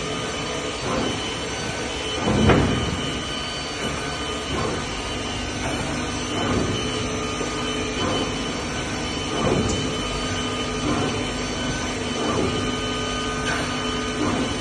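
Holemaster 4000 X Line CNC panel drilling machine running: a steady whine of several held tones, with a short surge of noise every second or two as it works, the loudest about two and a half seconds in.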